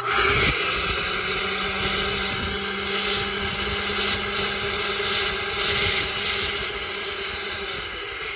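Vintage General Electric stainless-steel garbage disposal starting up and running at full speed (about 8,000 rpm), a steady high whir that sounds like a blender. Near the end it starts to fade as the motor winds down.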